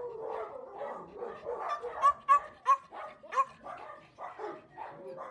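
Small dogs barking in a rapid run of short, high yips, several a second, with four louder sharp barks from about two to three and a half seconds in.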